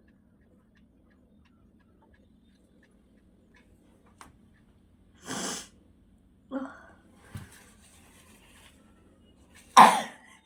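A woman sneezing, set off by a blade of grass tickling her nose: a softer sneeze about halfway through and a loud one near the end.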